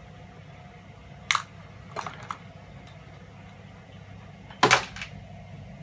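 Small metal plug parts clinking as they are handled and dropped: a few light clicks about a second and two seconds in, then a louder metallic clatter near the end.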